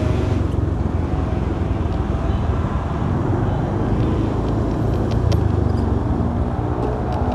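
Honda Beat scooter's small single-cylinder engine running steadily while riding, under steady wind and road noise.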